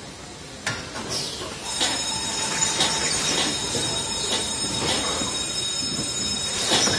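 Automatic three-in-one diaper case-packing line running: steady conveyor and machine noise with scattered clacks. A thin, steady high whine comes in about two seconds in.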